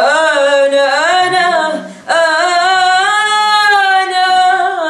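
A young woman singing an Arabic song unaccompanied, drawing out ornamented notes without words. She takes a short breath about two seconds in, then holds one long, wavering note.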